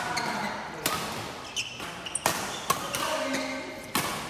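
Badminton rally: rackets striking the shuttlecock, four or five sharp hits at uneven intervals.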